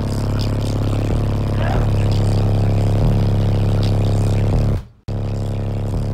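Bass-heavy rap music played very loud through three Sundown Audio ZV5 15-inch subwoofers in a sixth-order wall, driven by a Deaf Bonce Apocalypse 8000 amplifier wired to about 0.33 ohm, heard inside the vehicle. Deep sustained bass notes shift every second or so, and the sound drops out briefly about five seconds in before coming back.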